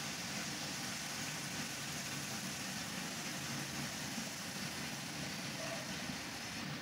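Hot oil sizzling steadily on freshly deep-fried potato fries as they are tipped from the pan into a wire strainer, over a steady low hum. The high hiss drops away near the end.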